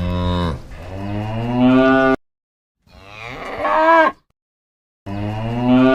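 Cow mooing three times, three long calls separated by short silent gaps.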